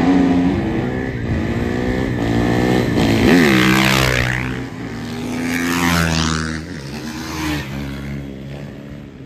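Several motorcycle engines revving, their pitch climbing and dropping. Two louder swells come about three and six seconds in, as bikes rev up and pass.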